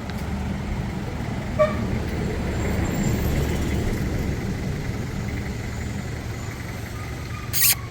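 Steady rumble of road traffic or a running vehicle, with a short horn toot about a second and a half in and a brief burst of noise near the end.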